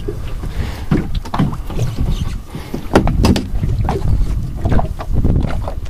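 Wind rumbling on the microphone, with several sharp knocks and bumps on the boat. The loudest knock comes about three seconds in.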